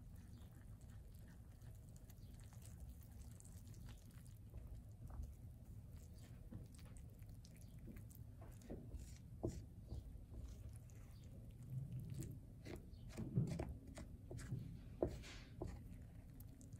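Spatula stirring flour and water in a ceramic bowl to start a bread dough: soft crunchy scraping through the flour, with short scrapes and taps against the bowl. The strokes get busier and louder in the second half, over a low steady hum.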